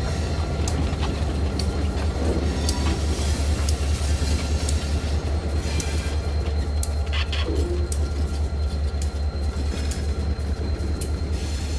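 EMD GP35 diesel locomotives running at low speed past the crossing, a loud, steady low engine rumble with an even throb. Over it a grade-crossing signal bell strikes over and over.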